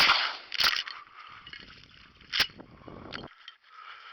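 Shotgun blasts at ducks flying overhead: two loud shots in quick succession at the start and a fainter one about two and a half seconds in.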